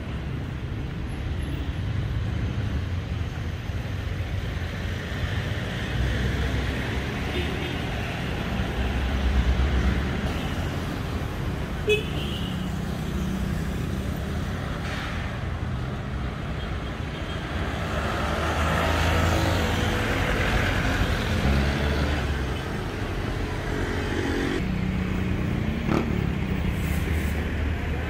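City street traffic: cars and motorcycles running steadily along the road, with one vehicle engine passing close and louder about two-thirds of the way through, and a short sharp sound near the middle.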